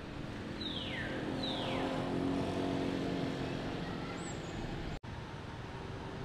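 A motor vehicle's engine hum swelling and fading as it passes, with two falling whistled calls about a second apart near the start.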